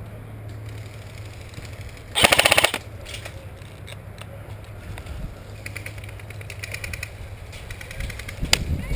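Airsoft gun firing a short full-auto burst close by, a rapid rattle of shots lasting about half a second, a little over two seconds in. Fainter rapid airsoft fire follows in the second half, with a single sharp crack near the end.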